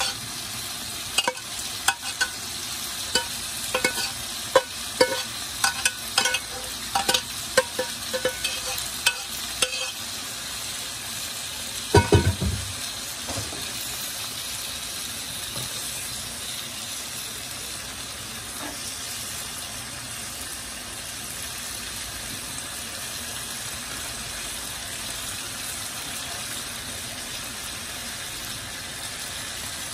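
Green beans and onions sizzling steadily in a frying pan. A metal spoon clinks and scrapes against the pan many times as they are stirred during the first ten seconds or so, with one louder knock about twelve seconds in.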